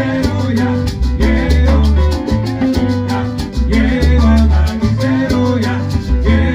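Live band playing an upbeat Latin groove: digital piano chords over a repeating low bass line, with steady percussion strokes.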